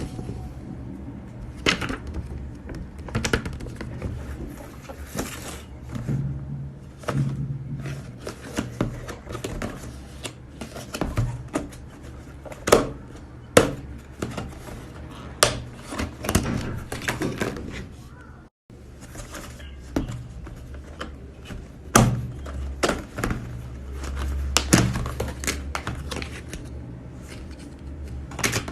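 Instant hot pot packaging being handled: plastic crinkling, with sharp clicks and knocks.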